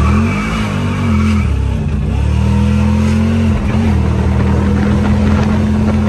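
A car's engine under full throttle from a standstill, its pitch climbing and dropping several times as the freshly installed automatic transmission and torque converter shift up, then holding a steady high note.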